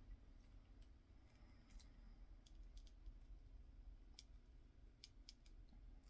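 Faint, scattered clicks of a plastic action figure being handled, its snug parts pressed on and its joints worked by hand.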